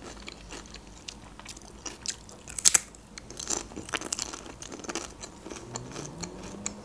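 Close-up crunching and chewing of a long, thin crisp: a bite near the start, then a run of short, dry crackles as it is chewed. The loudest crunch comes a little under three seconds in.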